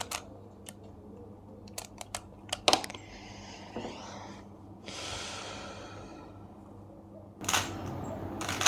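Rubik's cube being twisted: scattered plastic clicks of the layers turning. A soft hiss takes over in the middle, then a fast run of clicks starts near the end.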